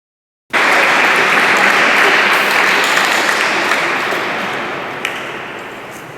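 Audience applause cutting in abruptly about half a second in, then slowly dying away.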